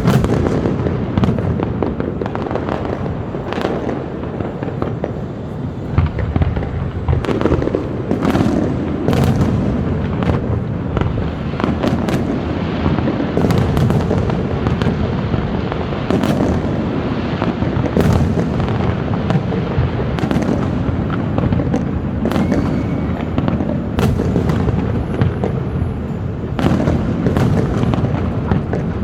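Large fireworks display: a continuous barrage of booming shell bursts over a steady rumble, with sharp cracks coming about once or twice a second throughout.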